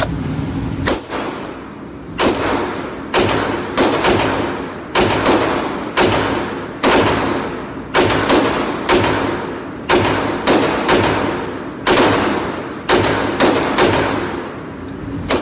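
Glock 19 9mm pistol firing at an indoor range: about twenty sharp shots at an uneven pace, several in quick pairs, each followed by a reverberant ring-out off the walls.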